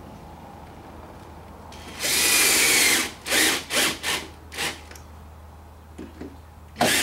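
Power drill driving wood screws through a flange: one run of about a second, then several short trigger bursts, starting the screws without tightening them.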